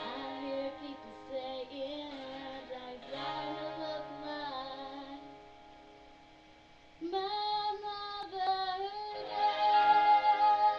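A young girl singing a ballad over backing music. The music drops low a little past the middle, then her voice comes back in strongly about seven seconds in.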